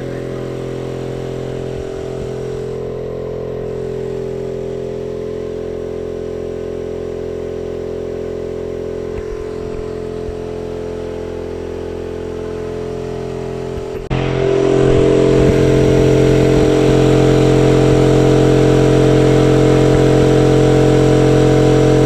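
Air compressor running steadily, a constant motor hum that jumps abruptly louder about fourteen seconds in. It keeps running without cutting out, which the owner puts down to the pressure switch being set too high.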